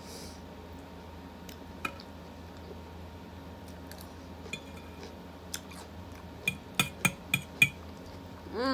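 Chewing a mouthful of salad, with a few soft clicks, then a quick run of sharp clicks near the end as a metal fork taps and scrapes against the plate.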